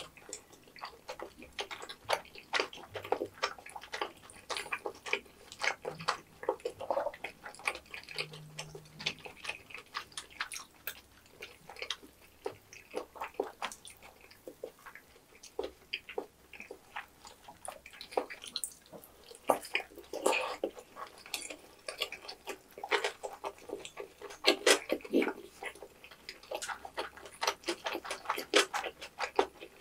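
Eating sounds from tteokbokki, kimbap and fried snacks: wet, sticky chewing and mouth smacks, many short irregular clicks.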